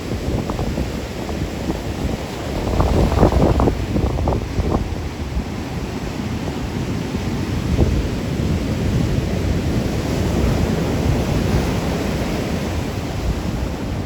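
Rough storm surf breaking and washing along a beach, with wind rumbling on the microphone; the wind gusts harder about three to five seconds in.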